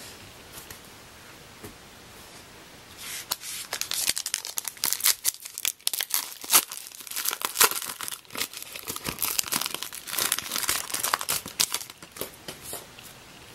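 A Topps Heritage baseball card pack wrapper being torn open and crinkled by hand. It starts about three seconds in as a quick run of rips and crackles and stops near the end.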